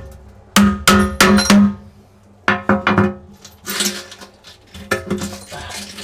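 Hammer striking a steel wood chisel to chip old silicone and glass off an aquarium's glass bottom: sharp metallic strikes that ring. About five come in quick succession, then after a short pause four more, followed by lighter taps and scraping.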